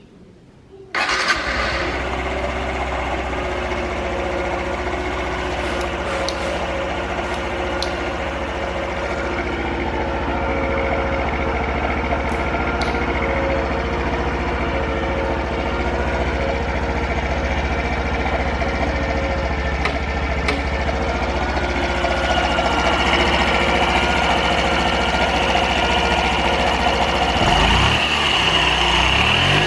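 Honda Super Cub 50 FI (AA04) single-cylinder four-stroke engine starting about a second in and then idling steadily, its speed rising near the end. It runs without abnormal engine noise, in the seller's judgment.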